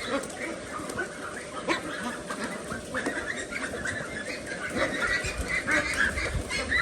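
A flock of ducks calling and chattering continuously, many short overlapping calls, with some low rumbling near the end.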